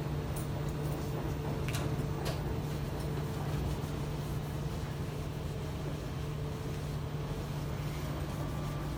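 Steady low hum of laundromat machines running, with a couple of faint clicks about two seconds in.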